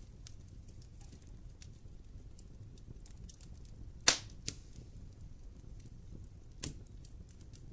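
Wood fire crackling in a fireplace over a low steady rumble of the flames, with faint scattered ticks, one loud sharp pop about four seconds in followed by a smaller one just after, and another pop near the end.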